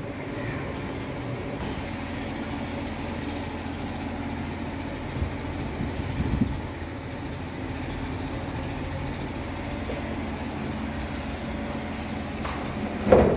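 Steady low hum with a few faint knocks about five to six and a half seconds in.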